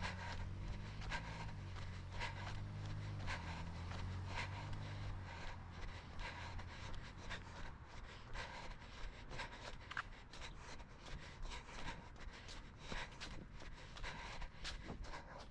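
Regular scratching and rubbing from the runner's gear on the microphone with each jogging stride. A low engine hum from road traffic fades out about halfway through.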